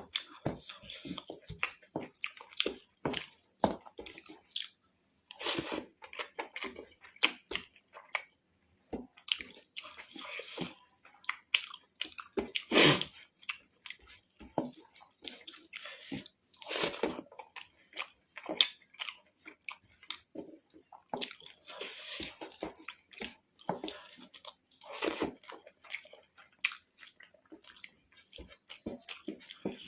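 A person eating a rice-and-curry meal close to the microphone: irregular chewing and biting sounds, a few louder than the rest, about halfway through and again later.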